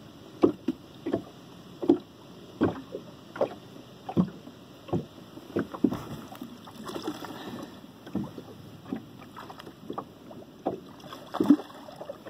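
Small waves slapping against a boat's hull in a steady rhythm, about one slap every three-quarters of a second.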